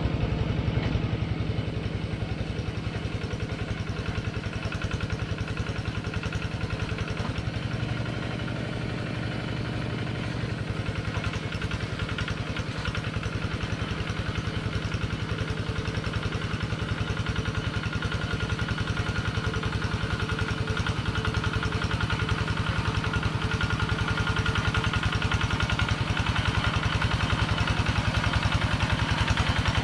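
Diesel engine of a Kubota two-wheel hand tractor running steadily under load while plowing a flooded rice paddy, a fast even chugging that grows gradually louder through the second half as the machine comes closer.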